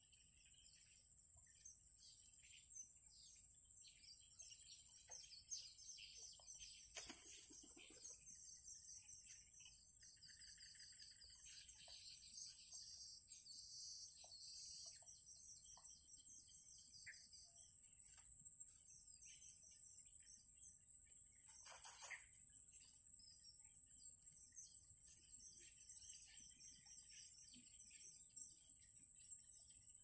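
Small birds chirping and trilling in rapid runs over a steady high insect whine; the chirping grows louder about ten seconds in.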